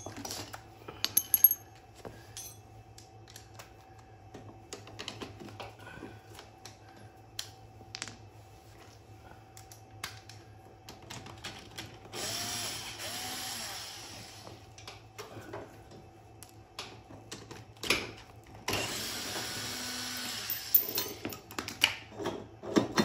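Cordless drill-driver run twice, about two seconds each time, backing out the bolts that hold a brake caliper on a go-kart front hub, with clicks and knocks of tools and metal parts being handled in between.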